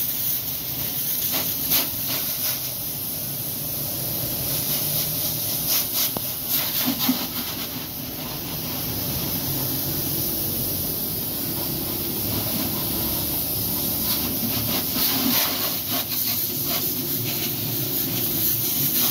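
High-pressure water jet from a hose nozzle hissing steadily as it sprays against a car's body and underside, with a steady low hum beneath it.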